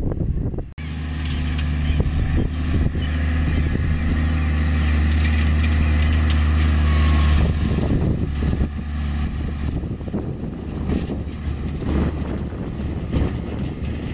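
Case IH 140 tractor's diesel engine running steadily under load while pulling a John Deere 980 field cultivator through the soil. It is a steady drone that grows louder for the first half, then drops back after about seven seconds.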